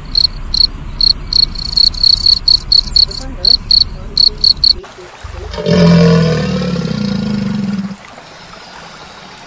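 Field cricket chirping: a steady run of short high chirps, about three a second, that cuts off about five seconds in. A crocodile's low, pitched growl follows for about two seconds and is the loudest sound here, then fades to a fainter low sound.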